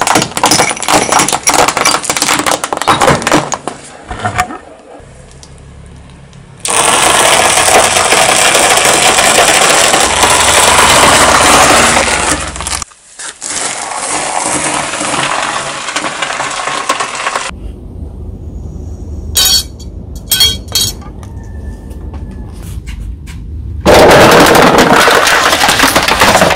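A car tyre rolling over and crushing objects on concrete. First comes a quick run of cracks as sticks of sidewalk chalk snap, then a long, loud crunching as a crumbly material is ground apart. Near the end there is the crackle of plastic packaging being flattened under the wheel.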